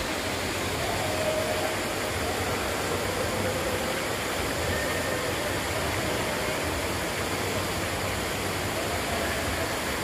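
Steady rush and splash of an indoor fountain's water falling into its pool.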